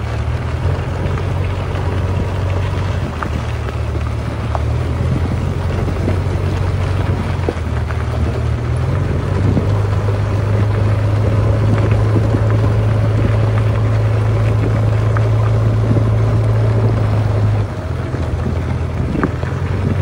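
JCB 3DX backhoe loader's diesel engine running steadily as the machine drives along, a low drone. It gets louder from about halfway through and drops back a couple of seconds before the end.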